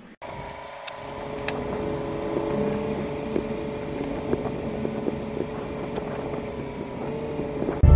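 Volvo C70 Cabriolet's power convertible top folding down: the hydraulic pump whines steadily while the rear lid lifts and the top stows, with a few sharp clicks from the mechanism. The whine stops just before the end.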